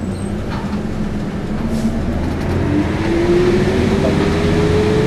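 Bus engine heard from inside the cab, running steadily under load, with a whine that rises in pitch from about halfway through as the bus picks up speed. A steady hiss of rain and wet-road tyre noise runs underneath.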